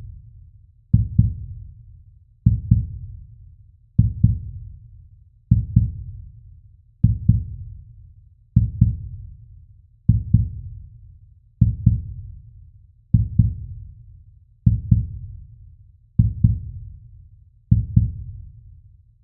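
Slow heartbeat sound effect: paired low lub-dub thumps repeating evenly about every one and a half seconds, around 40 beats a minute.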